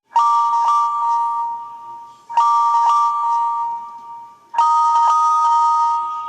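Samsung Galaxy J2 ringtone under the Viper OS custom ROM: an electronic two-tone ring, a few quick pulses over two steady tones, repeating about every two seconds. Three rings fall here.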